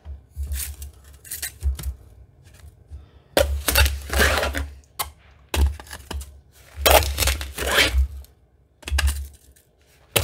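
Damp sand being scooped with a spoon and poured into a plastic 3D-printed enclosure: several irregular bursts of scraping and gritty pouring, each lasting up to about a second, with dull knocks under them.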